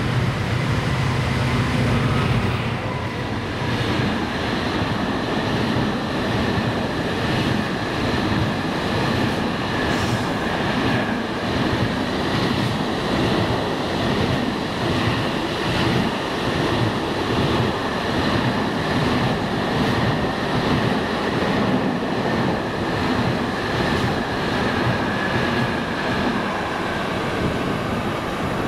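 A Class 66 diesel locomotive's two-stroke engine drones as it passes during the first few seconds. A long rake of container wagons follows, rolling by with a steady rhythmic clatter of wheels over the rail joints and a steady high ring from the wheels.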